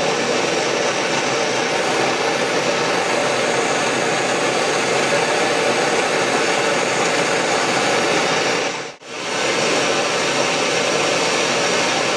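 Gas torch flame burning with a steady roar as it heats a brass boss and rod for silver soldering, with a brief break about nine seconds in.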